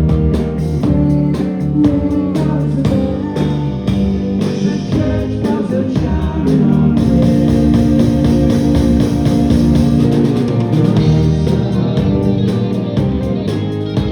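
A rock band playing live with singing: drums keep a steady beat under guitars and a lead vocal, with one long held note around the middle.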